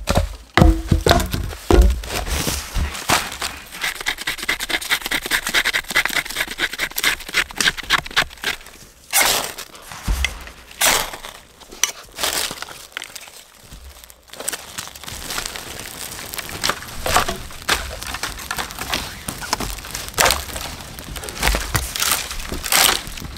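A few heavy axe strikes splitting wood in the first couple of seconds, then the snapping and crackling of a wood fire, first burning birch bark and later a stick fire burning high, with scattered sharp pops.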